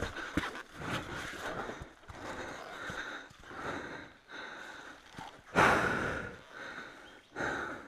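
A dirt-bike rider breathing hard inside a helmet, in heavy irregular puffs from the exertion of wrestling the bike up a rock step, with one louder burst about five and a half seconds in.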